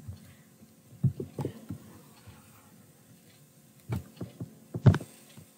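Several soft, short taps and knocks over quiet room tone: a few around a second in, and a few more near the end, the loudest about five seconds in.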